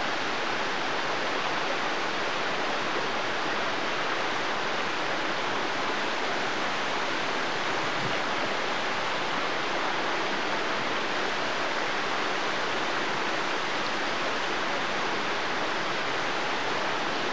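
A steady, even rushing noise that holds at one level with no distinct events.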